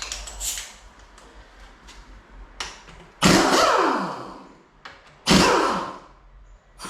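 A pneumatic tool run in two short bursts during engine teardown, each one starting suddenly and then winding down with a falling pitch as it spins down. A third burst starts right at the end. A few light clicks and knocks of tools on metal come first.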